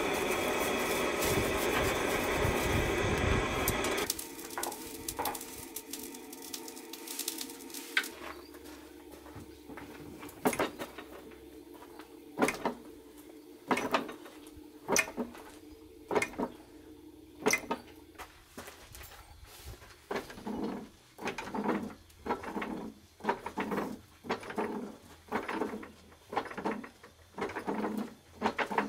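Coal forge fire burning hard under forced air, a steady rushing noise. It cuts off at about four seconds and gives way to a machine forging hammer striking a red-hot Damascus steel billet on its anvil die over a steady hum. The sharp metal-on-metal blows come scattered at first, then settle into a regular beat of about three blows every two seconds.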